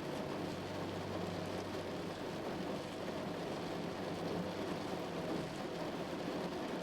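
Heavy rain falling steadily, an even hiss, with a low steady hum underneath.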